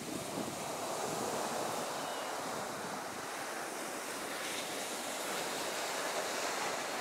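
Ocean surf washing onto a sandy beach in a steady rush, with wind blowing across the microphone.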